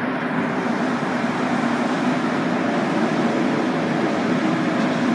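Montreal Metro Azur (MPM-10) rubber-tyred train pulling out of a station, heard from inside the car: a steady running noise that fills out and grows gradually louder as the train gathers speed.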